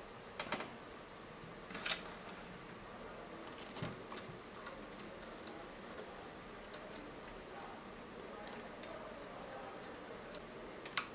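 Faint, scattered metallic clicks and ticks from a socket extension and the fork's metal parts being handled, with a sharper click just before the end.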